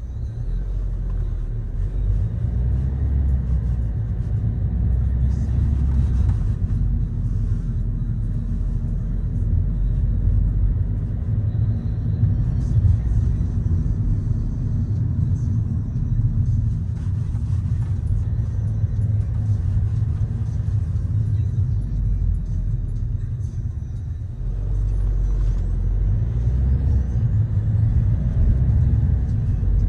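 Low, steady rumble of a car driving: road and engine noise, easing off briefly for about a second before picking up again.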